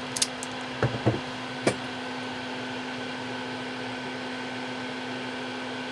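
A steady machine hum with a constant tone, and a few small clicks and taps in the first two seconds from handling wires and tools.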